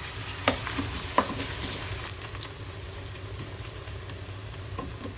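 Sliced onions sizzling steadily in hot oil as they are stirred, with the spoon knocking against the pan twice in the first second or so and a few lighter taps later.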